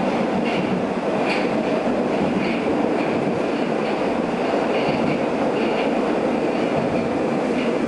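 Inside an 81-760/761 Oka metro car while the train is moving: the steady running noise of wheels on rail, with short faint high squeaks or clicks now and then.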